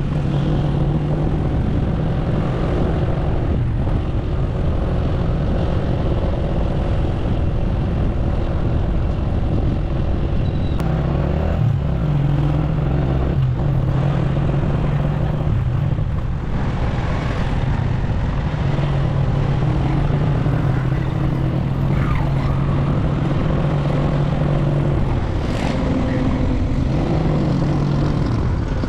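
Small motorcycle engine running at riding speed, a steady hum that shifts a little in pitch as it slows and picks up again, under continuous wind and road noise.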